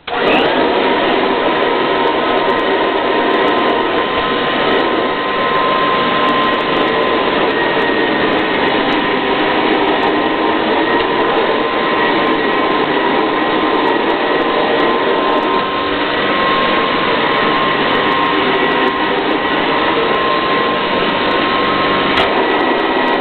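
Kirby Classic 3 2CB upright vacuum cleaner switched on and running steadily, a loud rush of air with a high steady whine from the motor.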